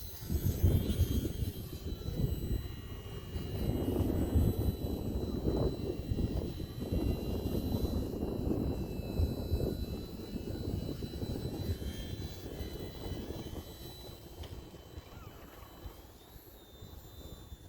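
Small electric RC airplane motor and propeller whining, its pitch shifting up and down as the throttle changes, under heavy gusting wind buffeting the microphone.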